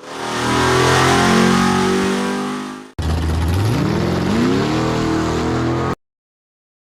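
Car engine revving in two spliced clips of about three seconds each. The second clip rises in pitch as the engine is revved up, then cuts off abruptly.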